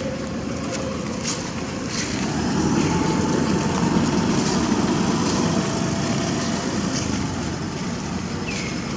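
A passing road vehicle's engine and tyre noise, swelling about a third of the way in and easing off again.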